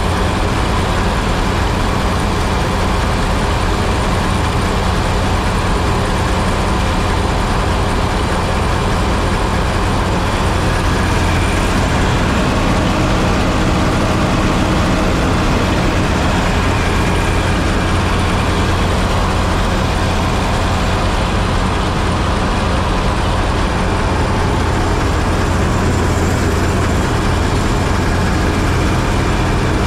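Massey Ferguson 86 combine harvester running steadily at high revs with its threshing and cleaning mechanisms engaged, a loud even machine drone as it is run empty to blow chaff and dust out of its insides.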